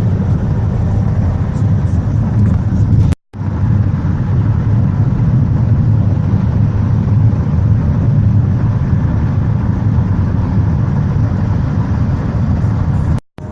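Steady rumble of road and engine noise from a car travelling at highway speed. The sound cuts out completely for a moment about three seconds in and again near the end.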